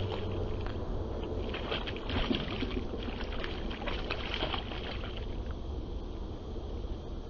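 Hooked speckled trout splashing at the water's surface right beside a kayak, in irregular bursts, over a low steady hum.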